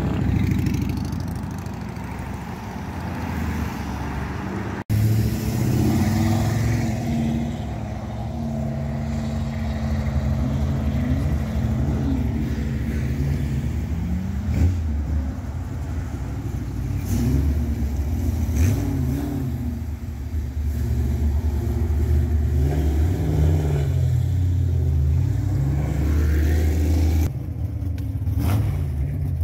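Classic cars and hot rods driving off one after another, their engines revving up and pulling through the gears. Near the end, a gasser-style hot rod's engine is running close by.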